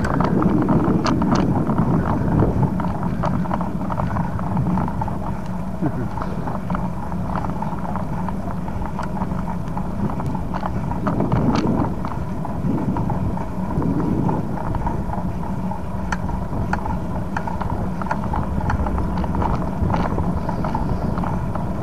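Steady rumble of wind and rolling noise from a bicycle on the move, picked up by a camera riding along, with light scattered clicks and rattles from the bike.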